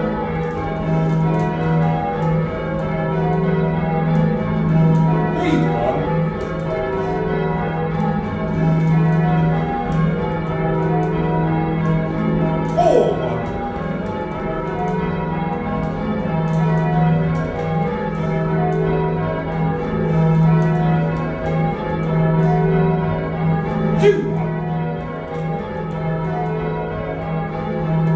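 Heavy ring of six church bells, cast by John Taylor & Co in 1925 with a 19-3-14 tenor in E-flat, being rung in changes: a steady, unbroken stream of overlapping bell strokes, heard from inside the ringing chamber beneath the bells.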